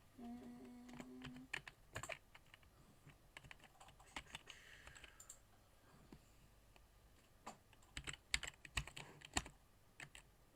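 Faint computer keyboard keystrokes and clicks, scattered at first and coming in a quicker cluster near the end. A brief low hum sounds for about a second near the start.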